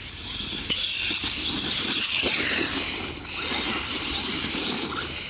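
Redcat Volcano RC monster truck running flat out, its electric motor and geartrain giving a high whir that drops away for about a second midway before picking up again.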